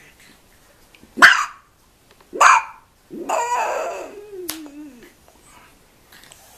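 Pug puppy giving two short, sharp, high-pitched barks a little over a second apart, the first the loudest, then a longer drawn-out whining call that wavers and falls in pitch.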